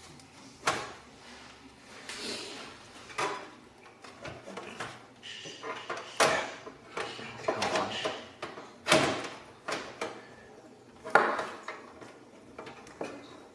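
Irregular knocks, clicks and short scrapes of a power supply, screws and screwdriver being handled in a metal computer case, about half a dozen sharper knocks among them.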